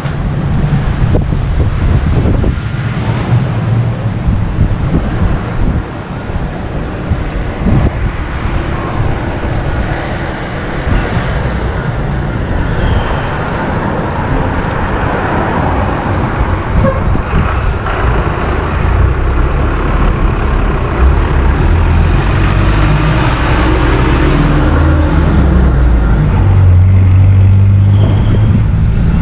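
Strong wind buffeting a GoPro Hero 8 Black's microphone, a loud uneven low rumble, mixed with the steady noise of road traffic. A thin rising whine comes in about 24 seconds in.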